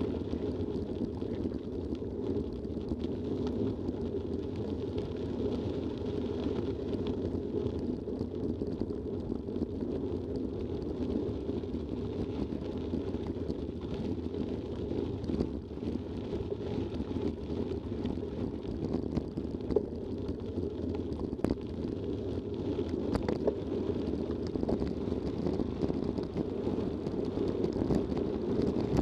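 Mountain bike rolling fast over a gravel forest track: a steady rumble of tyres on gravel mixed with wind on the microphone, broken by a few sharp clicks and rattles over bumps in the second half.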